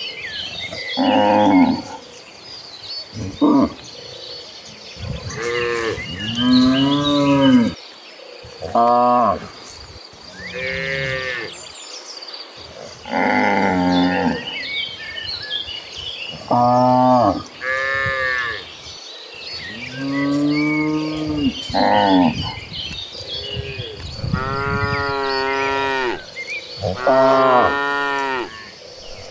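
A herd of cattle mooing, about a dozen calls one after another, some overlapping and some long and drawn out.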